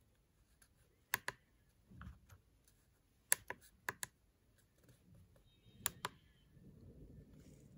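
Push-buttons on a TopCNC TC55H CNC controller's front panel clicking as they are pressed and released: four presses, each a quick double click, spaced a second or two apart.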